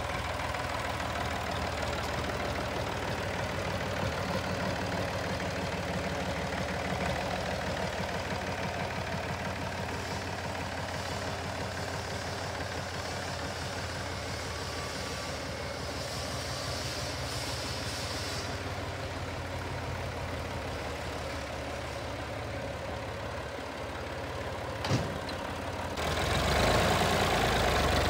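Massey Ferguson 135 tractor engine running steadily as the tractor is driven along, with one sharp knock about 25 seconds in. It gets louder near the end as the tractor comes close.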